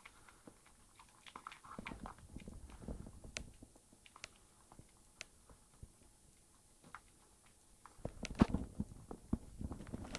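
A cat chewing and biting on a piece of beef steak: irregular chewing and crunching, busiest about two seconds in and again over the last two seconds, with sparse ticks in a quieter stretch between.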